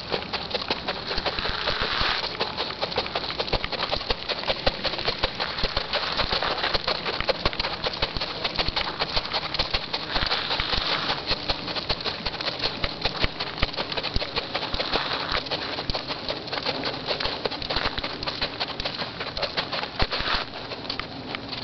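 Hoofbeats of a horse jogging on a sand arena's footing: a dense, irregular run of soft knocks over a rushing noise, which quiets near the end as the horse slows.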